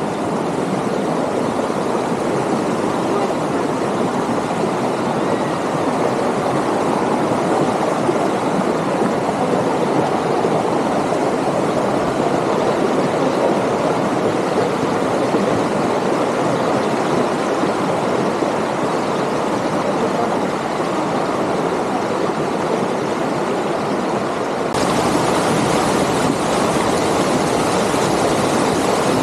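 River water flowing, a steady rushing wash with no break. About 25 seconds in it turns a little louder and brighter.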